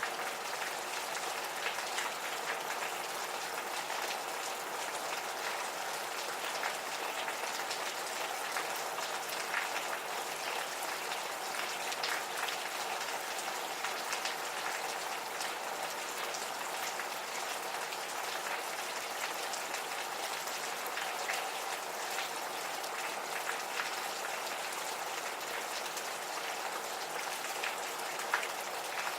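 Gentle, steady rain, with many individual drops ticking sharply over the even hiss of the rainfall.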